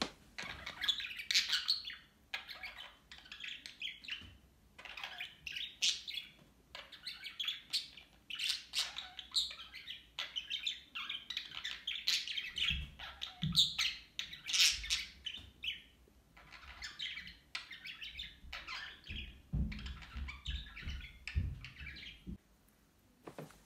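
Several budgerigars chattering and warbling in a near-continuous run of short, high chirps with brief pauses.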